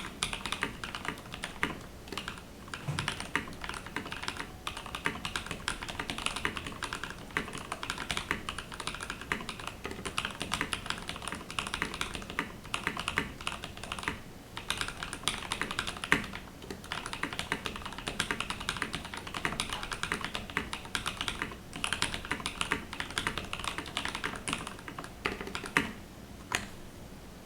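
Typing on a Graystudio Space65 Voyager mechanical keyboard with lubed NovelKeys Cream linear switches and PBT keycaps: a fast, continuous patter of keystrokes. A few single strokes stand out louder, one about halfway through and a couple near the end.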